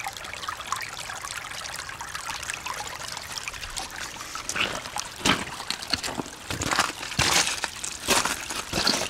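Shallow floodwater runoff trickling over gravel and stones in an eroded road rut, heard close up. From about halfway, louder irregular noises break in over the trickle.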